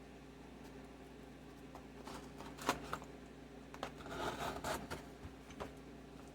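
A package being opened by hand: scattered scraping and tearing of packaging with a few sharp clicks, and a stretch of rustling and crinkling about four seconds in, over a faint steady hum.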